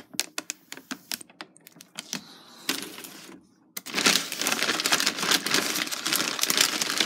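Plastic shrink-wrap and thin plastic water bottles crinkling and crackling as they are handled: scattered clicks at first, then a dense, loud crackle from about four seconds in.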